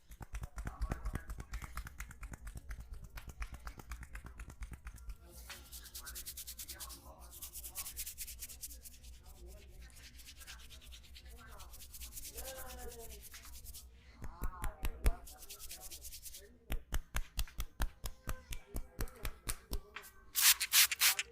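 Hand massage on a head and neck: fast rubbing and tapping of hands on skin and hair. Later this becomes a run of regular slaps, about three a second, and a brief loud rubbing burst near the end.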